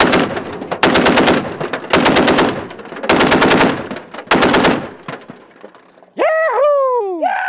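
M2 Browning .50 caliber heavy machine gun firing armor-piercing rounds in five short bursts, each about half a second long and roughly a second apart. Near the end a man yells twice, each cry falling in pitch.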